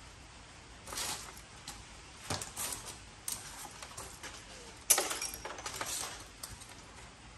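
Small brass and copper scrap pieces clinking and rattling against each other as they are sorted by hand. There are several separate clinks, and the loudest comes about five seconds in with a brief metallic ring.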